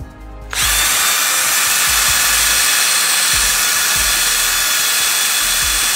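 Cordless drill spinning a Nylox nylon abrasive brush wheel against the grooves of a chrome barbell sleeve, scrubbing grime out of them: a steady motor whine with a hissing scrub that starts about half a second in and holds level.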